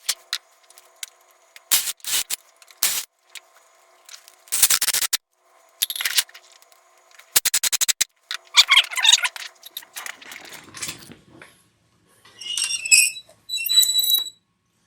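Tools working screws into a hardwood countertop while a bullet puller is fastened down: short bursts of rapid clicking and rasping, then two short squeaky bursts near the end.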